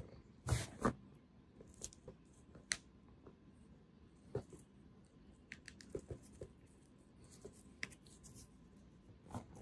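Faint, scattered soft taps and rustles from a cat pawing and grabbing at a braided rope toy held over it, with two louder thumps about half a second apart near the start.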